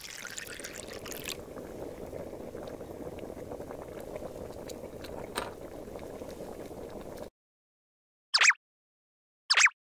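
Water poured from a tiny measuring cup into a miniature pot for about the first second, then the small pot of vegetables simmering with a steady bubbling and small pops, cutting off suddenly about seven seconds in. Two short bright jingle blips follow near the end.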